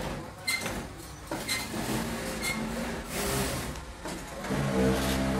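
Industrial lockstitch sewing machines running in short stitching bursts, with sharp clicks about once a second. A steadier machine hum grows louder near the end.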